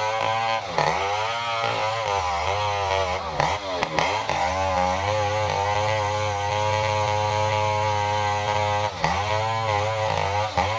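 Stihl 070 two-stroke chainsaw running at high revs while cutting into a durian log. Its pitch sags several times as the chain bogs in the wood, around a second in, again between two and four seconds in, and near nine seconds in, each time climbing back.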